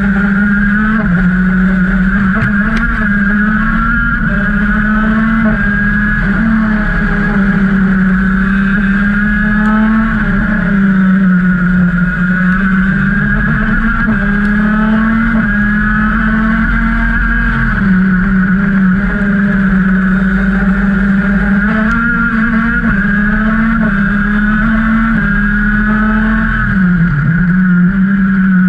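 Onboard sound of a KZ shifter kart's 125cc two-stroke engine at racing speed. The engine note rises and dips through the lap, falling off sharply a few times.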